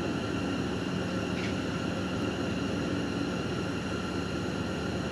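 A steady mechanical hum with a few faint held tones, and a brief faint tick about one and a half seconds in.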